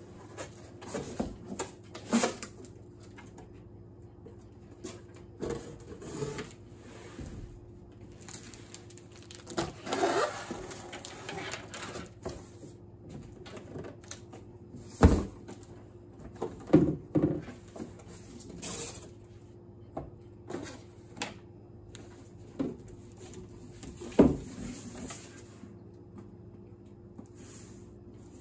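Cardboard laptop packaging and its plastic-sleeved contents being handled on a table: scattered knocks and thumps as box pieces are moved and set down, with a longer rustling slide about ten seconds in. Two sharp knocks, about halfway through and again near the end, are the loudest.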